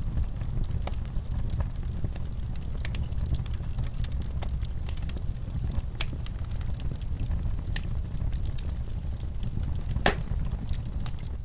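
Wood fire crackling in a fireplace: a steady low rumble of flames with scattered sharp pops and snaps, the loudest pop about ten seconds in.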